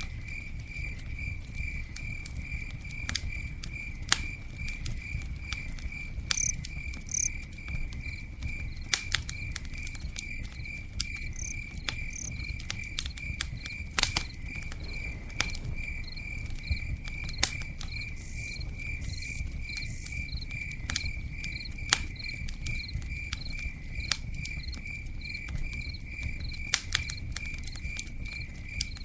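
Campfire crackling, with scattered sharp pops over a low rumble, while a cricket chirps in a steady, evenly spaced rhythm throughout.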